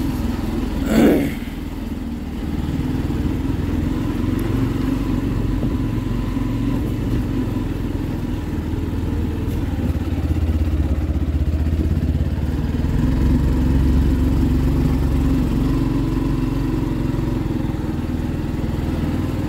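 Motorcycle engine running steadily as the bike rides along, getting a little louder partway through. About a second in there is a brief, louder sound that rises and falls in pitch.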